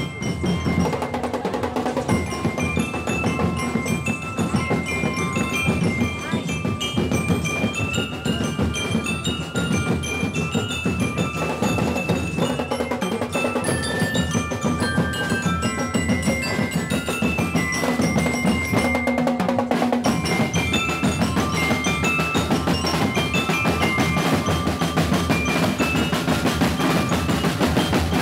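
Marching drum and lyre band playing: bell lyres ring out a quick melody of short, bright notes over a dense, steady beat of bass drums.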